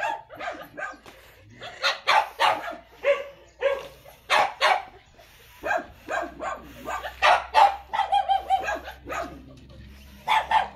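Dogs barking and yipping in a rapid string of short calls, with a longer drawn-out whining call about eight seconds in.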